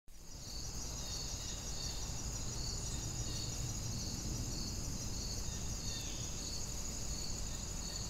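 Insects chirping steadily in a forest ambience: a high, continuous trill with a pulsing chirp about three times every two seconds, over a low background rumble.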